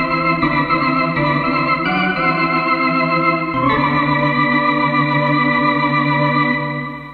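Yamaha YC-45D combo organ tone, sampled and played from a Korg Kronos keyboard: held organ chords that change about four times, then die away near the end.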